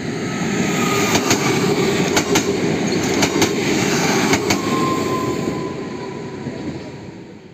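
A passenger train passing close by at speed: a steady rumble with wheels clicking in pairs about once a second. It fades away over the last two seconds as the train moves off.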